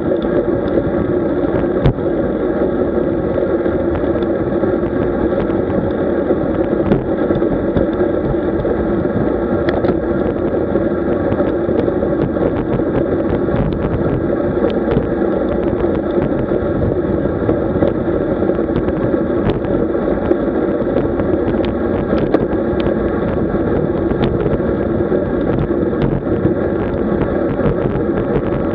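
Steady rushing wind and road noise from a road bicycle riding along, picked up by the camera on the bike, with a faint hum and scattered small clicks.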